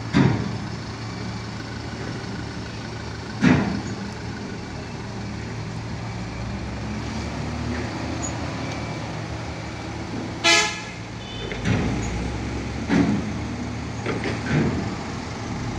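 Trucks and cars driving past with engines running, and a short vehicle horn toot about ten seconds in. Several loud thumps stand out over the engine noise, the first right at the start.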